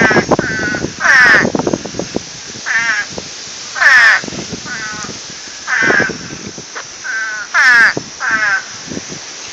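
Pond frogs calling over and over, loud harsh croaks of a third to half a second each, about nine in a row at uneven gaps.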